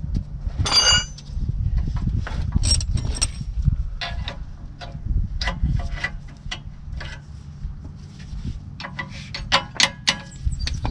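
Metal hand tools clinking, tapping and scraping against the rear wheel hub and brake parts, with several sharp ringing metallic clinks, the first a little under a second in, and a run of quick clicks near the end, over steady low background noise.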